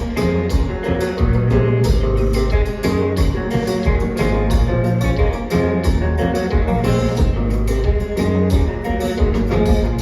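A live band playing kompa: electric guitar and bass over drums keeping a steady beat.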